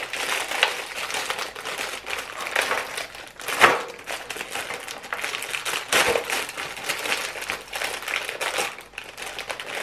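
Clear plastic wrapping on a plastic cookie tray crinkling and crackling as it is handled and peeled back, with a louder sharp crack about three and a half seconds in and another about six seconds in.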